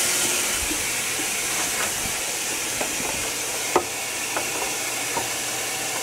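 Python aquarium water changer sucking water out of a hang-on-the-back filter's box: a steady hiss of water and air rushing into the gravel tube, with a few faint clicks.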